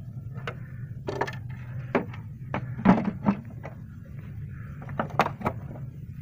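Scattered light knocks and clicks from hands handling a fiberglass RC model tugboat, over a steady low hum. The knocks are irregular and bunch together in the first half and again about five seconds in.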